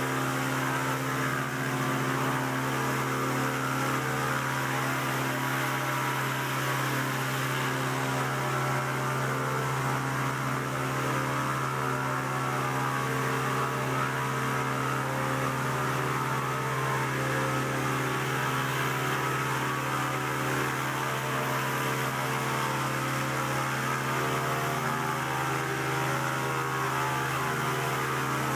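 Heavy artificial rain hissing down over a steady, loud machine drone with a low hum, from the rain rig's pumps and machinery on a film set.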